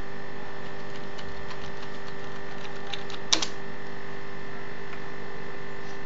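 Steady whirring hum of a running desktop PC, with a few faint ticks and one sharp click a little over three seconds in.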